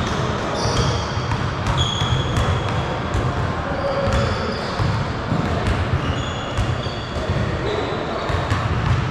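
Basketball game in a gym: a ball bouncing on the hardwood court with repeated thumps, and many short, high sneaker squeaks.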